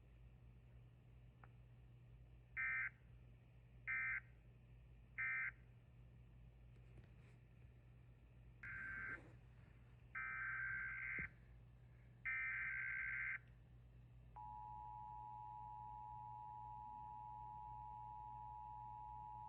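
Emergency Alert System digital data bursts: three short end-of-message bursts about a second apart, then three longer header bursts that open the next alert. About fourteen seconds in, the steady two-tone EAS attention signal starts and runs on.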